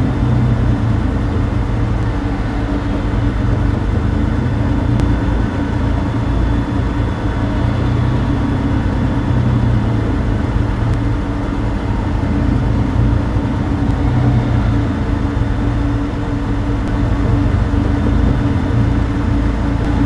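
Clone Turbo Tank (HAVw A6 Juggernaut) interior engine noise sound effect: a steady, deep engine drone as heard from inside the vehicle, looped without change.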